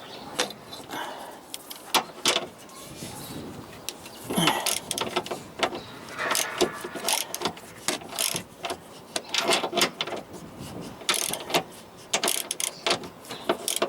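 Irregular metal clicks and knocks of hand tools working on a car's front suspension arm bolt, with a man grunting and groaning from the effort.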